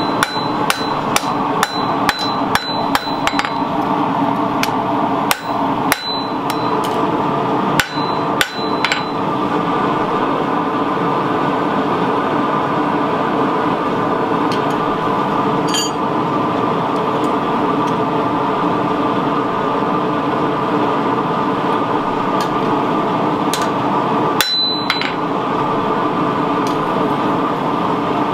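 Hand hammer striking a red-hot 52100 carbon-steel knife blade on an anvil, about two blows a second for the first nine seconds, each with a high ring from the anvil; one more ringing blow comes about 24 seconds in. A steady mechanical drone runs underneath.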